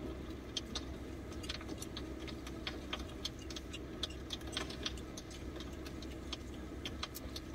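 Scattered, irregular light clicks and ticks over a steady low hum.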